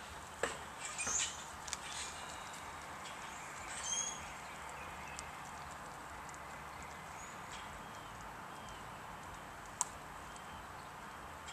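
Greyhound chewing raw chicken pieces: scattered crunching clicks of bone and meat, a flurry in the first couple of seconds and a single sharp click near the end, over a steady background hiss.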